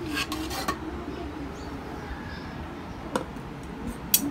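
Light metal clinks and knocks as a stainless steel bowl is lifted out of a pressure cooker: a few in the first second, another about three seconds in, and the sharpest just before the end.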